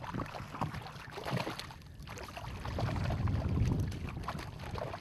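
Shallow water splashing and sloshing as a hooked fish is drawn in through the shallows, with a run of small splashes early on and a steadier low rush of moving water from about halfway.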